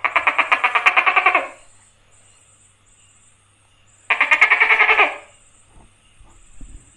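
Tokay gecko calling: two loud, rattling calls made of rapid pulses, about eight a second. The first lasts about a second and a half; the second, shorter one comes about four seconds in.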